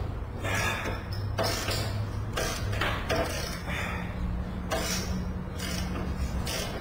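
Irregular knocks and clatter, about one or two a second, over a steady low hum, with a second low tone joining about halfway through.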